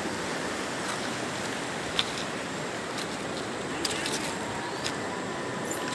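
Steady rushing of flowing river water over a pebble riverbed, with three sharp clicks of stones knocking, about two, four and five seconds in.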